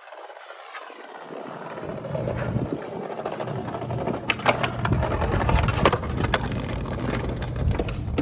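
Skateboard wheels rolling on concrete, a low rumble that grows louder over the first two seconds and then holds, with a few sharp clacks from the board in the middle.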